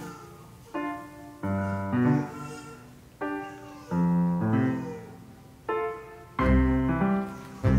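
Background piano music: notes and chords struck about once a second, each dying away before the next.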